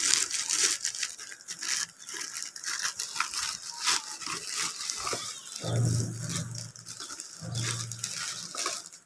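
Plastic courier mailer crinkling and rustling as it is handled and a cardboard product box is pulled out of it. About halfway through, a low steady buzz sounds twice, each time for about a second.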